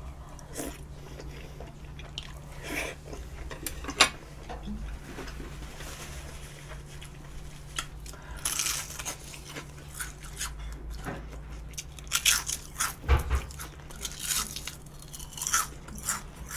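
Close-up eating sounds: chewing and biting, with crisp crunches from a battered deep-fried vegetable leaf, coming in quick clusters in the second half. A low steady hum runs underneath.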